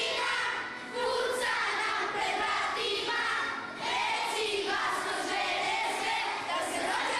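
A group of children singing together in chorus, with short breaks between phrases about a second in and again near four seconds in.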